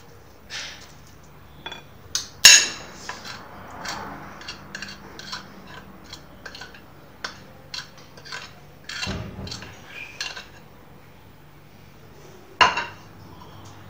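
A whisk and utensils clinking and knocking against a ceramic mixing bowl while batter is mixed and flour is added: a string of short clinks, with a sharp knock about two and a half seconds in and another near the end.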